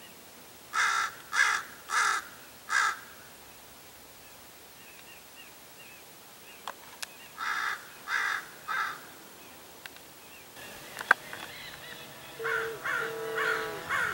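Common raven calling from a perch: harsh, rasping caws, four in quick succession about a second in, then three more around the middle. Near the end more calls come over a steady humming tone.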